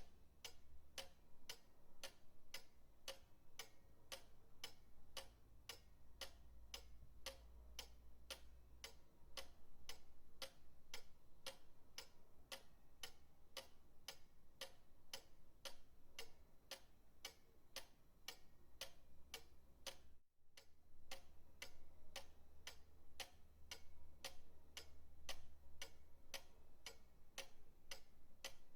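Pendulum clock ticking steadily, about two ticks a second, with a brief break in the sound about twenty seconds in.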